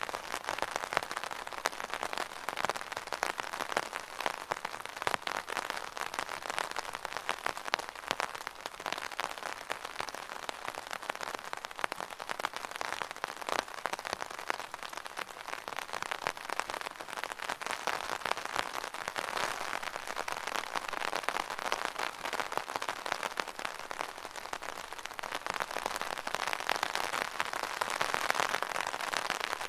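Rain pattering on an umbrella's fabric canopy: a dense, steady stream of small drop taps that swells slightly near the end.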